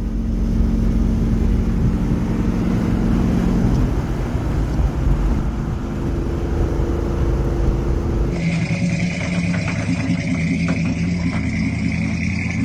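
An engine running steadily. About eight seconds in there is an abrupt cut to another running engine, with a high steady whine over it.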